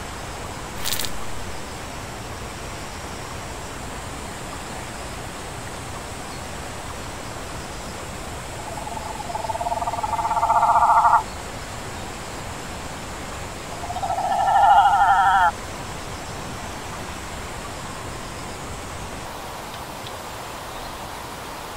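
Two buzzing insect calls from amplified recordings, the first about nine seconds in and the second about fourteen, each swelling in loudness for a couple of seconds and then cutting off suddenly, over a steady hiss. A short click about a second in.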